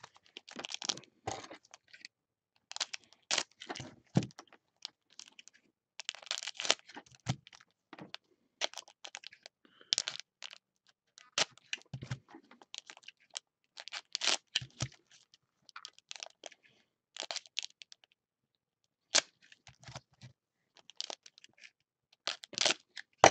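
Foil-wrapped Upper Deck hockey card packs crinkling and clicking as gloved hands shuffle and stack them on a table, in irregular bursts with a short pause near the end.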